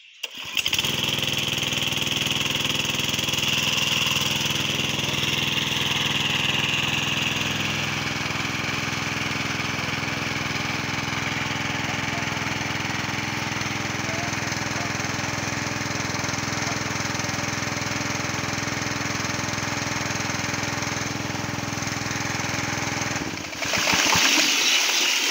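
Small portable engine-driven water pump (WP30) running steadily, drawing water from a well. About two seconds before the end, the engine sound gives way to the splash of water gushing from its outlet pipe.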